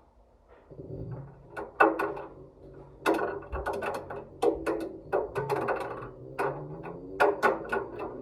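A ball knocking irregularly against the inside of a turning washing machine drum, about ten knocks with the loudest near two, three, five and seven and a half seconds in, over the steady hum of the machine's motor.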